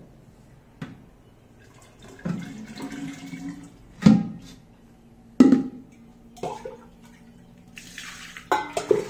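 Contents of a metal pot poured into a clay pot: a pouring stretch, then two loud plops with a short hollow ring from the clay pot about four and five and a half seconds in. Near the end, quick metal clinks as a small steel bowl knocks inside a steel pot.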